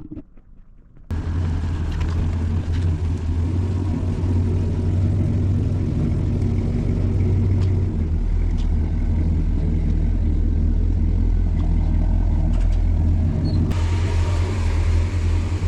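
A motor running with a steady low drone that starts abruptly about a second in; a steady hiss joins it near the end.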